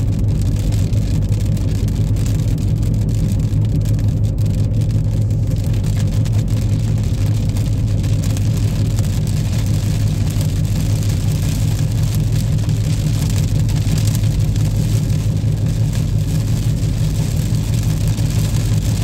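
A car driving in the rain, heard from inside the cabin: a steady low rumble of engine and road noise under an even hiss of rain and wet tyres. The hiss swells a little about two-thirds of the way through.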